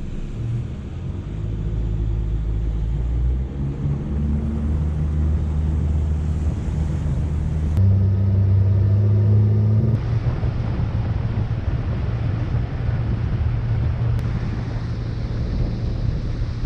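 Yamaha outboard motor running with the boat under way, a steady engine drone over wind and water hiss. The engine note jumps to a different pitch abruptly a few times.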